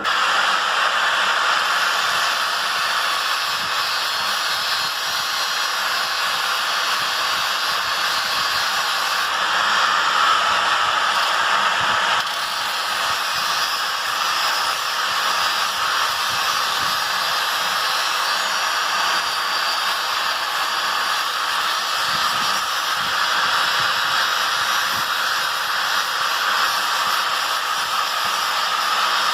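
A power tool running steadily, grinding on the metal of a knife blade with a continuous hissing noise.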